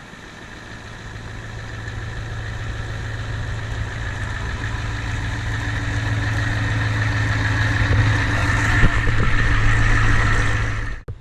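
Diesel truck engine running as it draws near, a steady low drone that grows gradually louder, then cuts off suddenly near the end.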